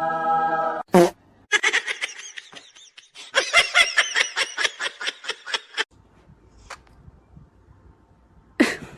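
Laughter in quick repeated bursts, after a short held voiced tone; quieter for the last few seconds, with a brief high cry near the end.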